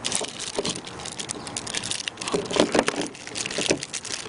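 Crinkling and crackling of a metallised anti-static bag holding a Seagate hard drive, handled and lifted out of its packaging, with louder crackles in several irregular spells.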